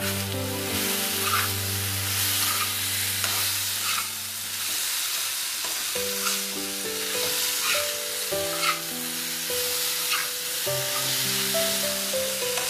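Boiled potato cubes sizzling in oil in a nonstick kadhai while a spatula stirs them, with a scrape of the spatula against the pan every second or two.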